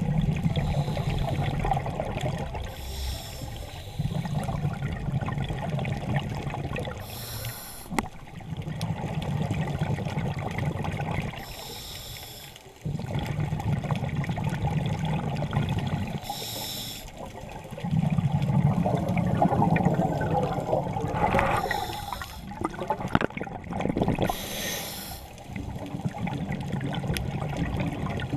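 Scuba diver breathing through a regulator underwater: a short hissing inhale about every four to five seconds, each followed by a longer bubbling exhale.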